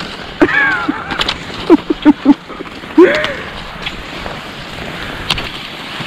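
Fischer cross-country skis sliding and scraping over snow, with a few sharp clicks from the ski poles being planted. Brief wordless vocal sounds from the skier come in a few times.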